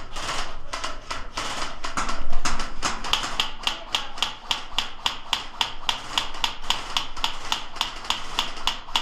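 Airsoft gun firing a rapid, steady string of shots, about five a second, at an opponent; the shots miss.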